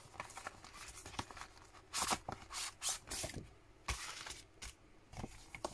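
Clear plastic packaging sleeve crinkling and rustling in the hands as a set of metal cutting dies is slid out of it, in irregular bursts, the loudest about two seconds in.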